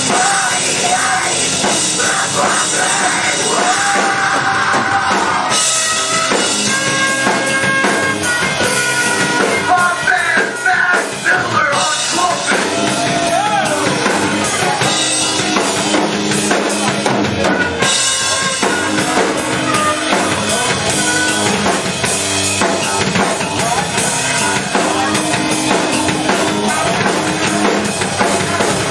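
Live rap-metal band playing loud and without pause: drum kit, electric guitar and bass, with vocalists singing into microphones.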